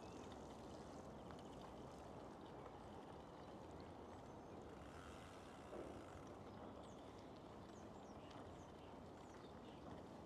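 Near silence: faint steady low outdoor background noise, with scattered faint high bird chirps mostly in the second half.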